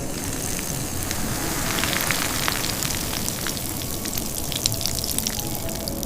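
A dense crackling hiss, thick with small irregular ticks and clicks, running steadily throughout.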